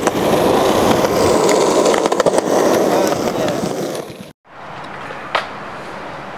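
Skateboard wheels rolling over rough concrete with scattered small clicks from the board. After a sudden cut about four seconds in, quieter rolling follows, with a single sharp clack of the board about a second later.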